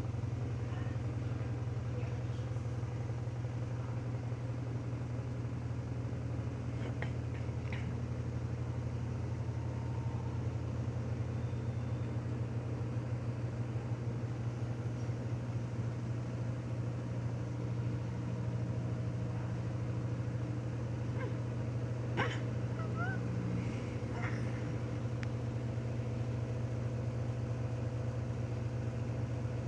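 Washing machine drum spinning at high speed in the spin cycle, spinning water out of the wash: a steady low hum with a few faint clicks.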